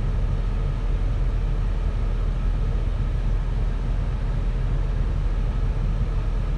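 Pickup truck engine idling, heard from inside the cab as a steady low hum.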